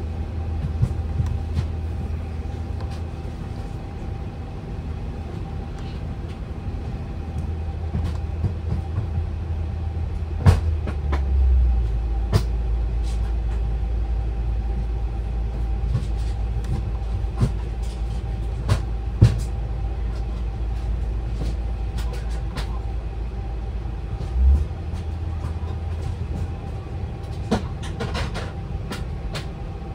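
Steady low rumble and a steady hum of a powered airliner cockpit's running systems, with scattered short clicks. The low rumble shifts down in pitch about a third of the way in and back up near the end.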